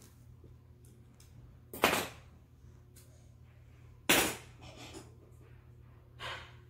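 Plastic building-toy pieces knocked down onto a hard tabletop: three sharp clacks a couple of seconds apart, the first two loudest.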